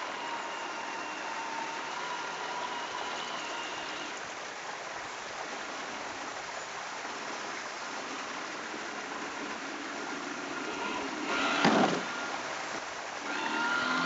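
Radio-controlled model boat under way on open water: a thin, steady motor whine over a haze of water noise. About three-quarters of the way through there is a short loud rush, and near the end the whine rises and grows louder as the boat comes close.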